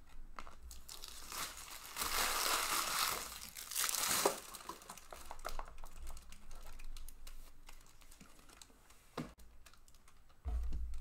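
Trading cards and their wrappers handled on a table: a loud crinkling rustle for about two seconds, then light clicks and taps as cards are sorted, and a low bump near the end.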